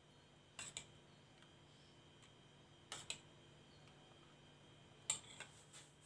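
Metal spoon clicking against the plate and crisp puris while yogurt is spooned on: faint, sharp clicks in small clusters, three times at fairly even intervals.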